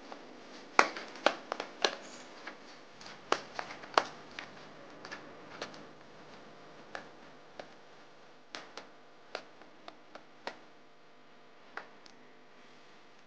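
Dough being kneaded by hand in a bowl: irregular sharp taps and knocks as the hand and dough hit the bowl. They come thick and fast in the first four seconds, then sparser, stopping near the end.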